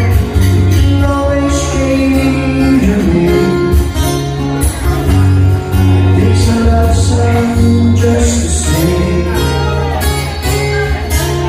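A song with guitar, a steady beat and singing.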